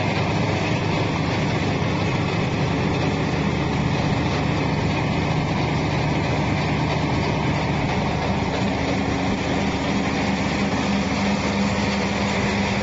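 Mealworm separating machine running: a steady mechanical hum and rumble from its motor-driven sieve screens and the blower that clears off shed skins.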